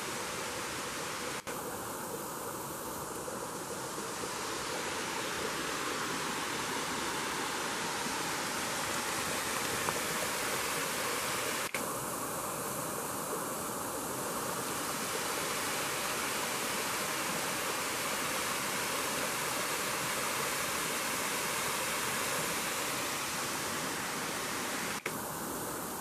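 Small woodland waterfall and brook rushing steadily.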